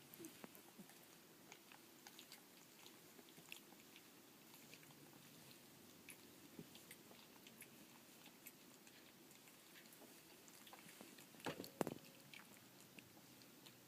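Faint scattered mouth smacks and small clicks from 18-day-old collie puppies, with a brief louder cluster of them about three-quarters of the way through.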